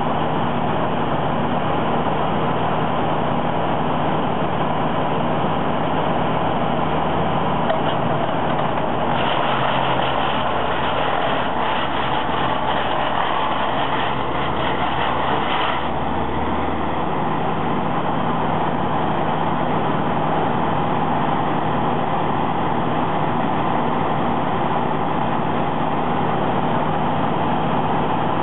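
Brush Bandit 90XP disc wood chipper with its 37 hp Wisconsin gas engine running steadily at speed. From about nine seconds in, for some seven seconds, branches going through the chipper disc add a loud, rough crackling over the engine, and the engine's low note shifts under the load.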